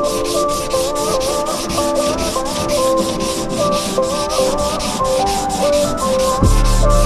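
Rhythmic sanding strokes, about four a second, likely on the truck bed's body work, under background music with a melody; near the end a heavy bass comes in.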